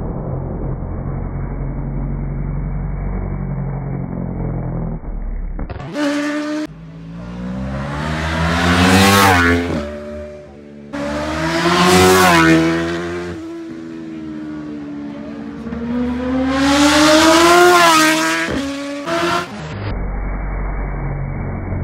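Superbike racing motorcycles passing at speed: three passes, each swelling loud as the engine revs climb and then falling away in pitch as the bike goes by. Before and after the passes there is only a muffled low rumble.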